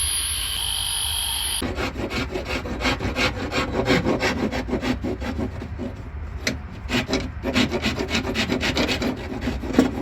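A small power tool whines at a high steady pitch and cuts off about a second and a half in. Then comes rapid back-and-forth rasping of hand filing, about three to four strokes a second, widening the chamfer on a cockpit drain so that the drain cover sits flush.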